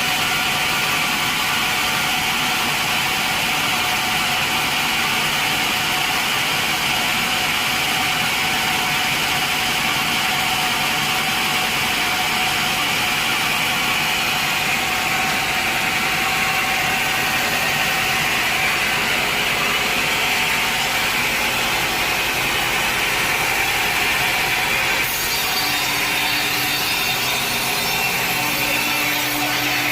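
A sawmill saw running and cutting through a log steadily. The sound turns hissier and brighter near the end.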